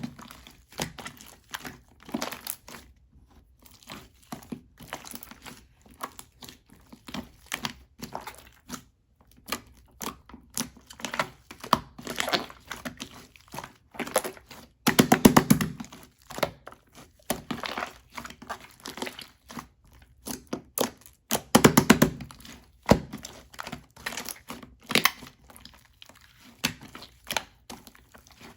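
Clay-mixed slime being squished and stretched by hand: an irregular run of small crackling pops and clicks, with louder presses about halfway through and again around three quarters of the way in.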